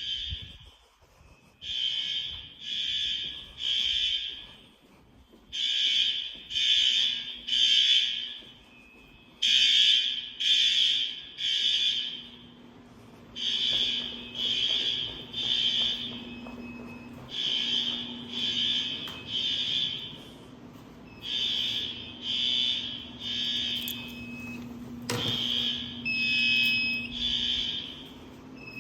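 Fire alarm sounding under test in the three-beep temporal evacuation pattern: groups of three high-pitched beeps about a second apart, the group repeating every four seconds or so. A steady low hum runs under the second half, and there is a single knock near the end.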